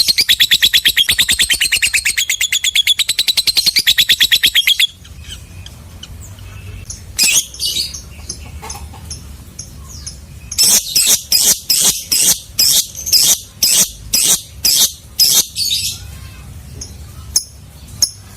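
Lovebird singing: a long, rapid chattering trill that cuts off suddenly about five seconds in. After a brief call around seven seconds, a run of loud, sharp chirps follows at about two a second for some five seconds.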